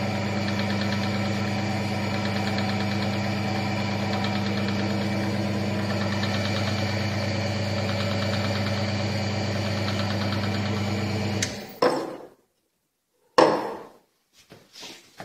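The electric motor of a bench-top oil friction tester runs with a steady hum, a fine rapid ticking over it, then shuts off abruptly about eleven seconds in. After it stops, a few sharp knocks of metal parts being handled follow.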